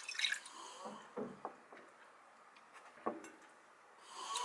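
Water poured from a glass cup into a glass container, splashing at the start. A few light knocks follow, and near the end soy sauce begins pouring into the container.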